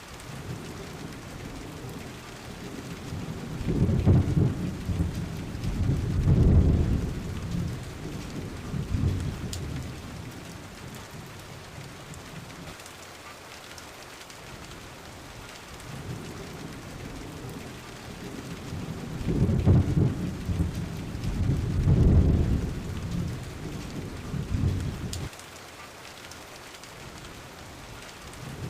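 Steady rain with two long low rolls of thunder, the first about four seconds in and the second from about sixteen seconds, each swelling to a couple of louder peaks. The second roll cuts off suddenly near the end.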